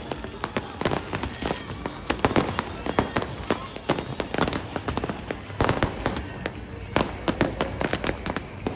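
Fireworks going off in an irregular string of sharp bangs and cracks, several a second, with no pause.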